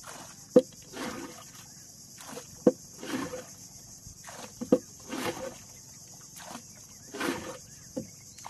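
Paddle strokes on a small boat, four in a steady rhythm about every two seconds: each is a sharp knock of the paddle against the hull followed by the swish of the blade through the water.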